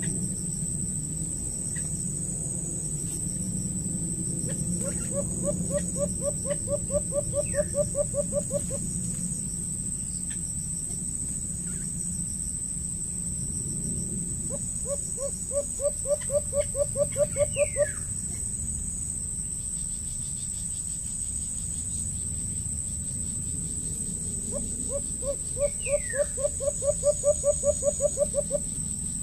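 A bird calling in a tree canopy: a rapid run of low hooting notes, about five a second, that grows louder and lasts a few seconds. The run comes three times, about ten seconds apart. A steady high insect drone sits underneath.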